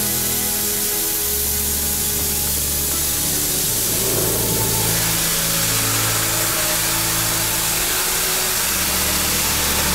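Automatic car-wash spray hissing steadily into a car cabin through an open sunroof. Background music with long held notes plays over it.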